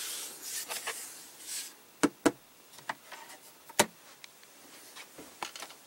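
Hard plastic suitcase-style solar power box being closed by hand: a soft rustle of handling as the panel lid comes down, then sharp plastic clicks as its latches snap shut, two close together about two seconds in and a louder one near four seconds.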